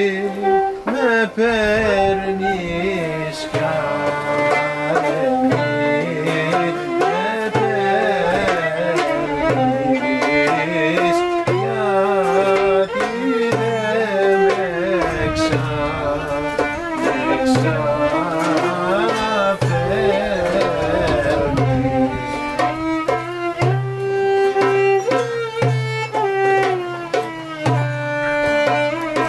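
Live Greek folk music, instrumental: a violin plays a wavering melody over lute and hand percussion keeping a steady, even beat.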